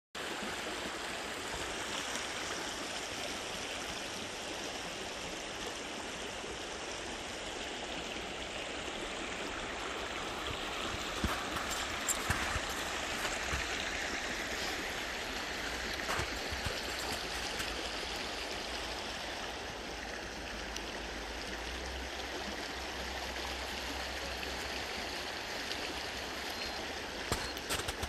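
Small creek flowing steadily, a continuous rushing of running water, with a few soft knocks around the middle.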